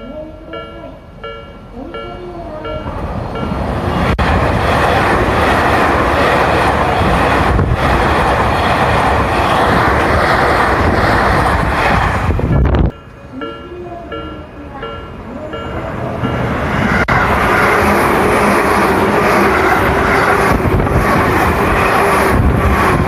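Japanese level-crossing warning bell ringing in a fast steady rhythm while electric commuter trains pass over the crossing, their running rumble building up and drowning the bell. The first train's sound cuts off suddenly about halfway through. The bell rings out again, and a second train passes.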